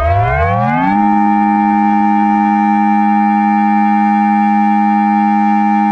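Emergency Alert System-style alarm: several tones glide upward together for about a second, then hold as one loud, steady chord.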